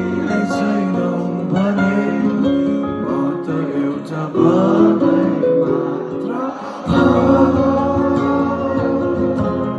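Live band music: strummed guitar with a voice singing, the low end growing fuller about seven seconds in.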